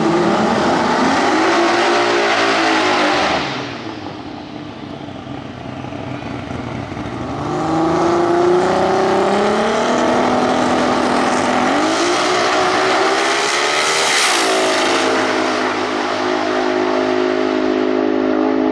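Turbocharged 4.0-litre Ford Barra straight-six in a drag-race Falcon XR6, revved up and down several times at the start line. About 14 s in it goes to full power as the car launches, then holds a steady high note as it runs down the strip.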